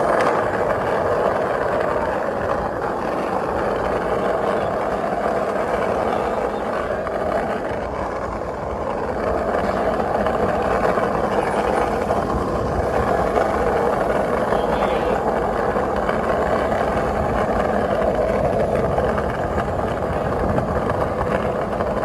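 Skate wheels rolling steadily over street pavement, a continuous rough rolling noise.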